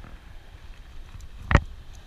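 Wind rumbling on the microphone, with one sharp knock about one and a half seconds in.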